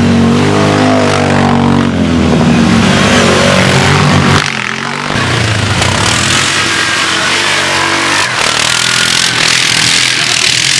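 Quad bike engines revving hard, the pitch rising and falling as they accelerate, with a short dip in loudness about four and a half seconds in.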